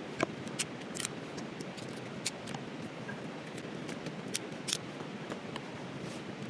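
Dry twigs and sticks clicking and snapping as they are laid into a stone fire pit to build a fire, a dozen or so sharp separate cracks. Behind them, the steady rush of river water.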